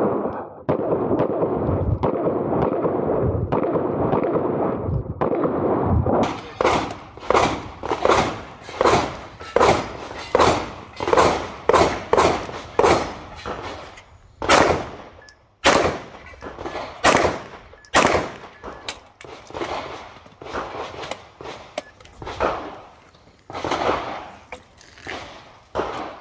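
H&K VP9L 9mm pistol fired in a long string of rapid shots, about two a second, each with a short echo; the shots come sparser near the end. A steady rushing noise runs under the first several seconds.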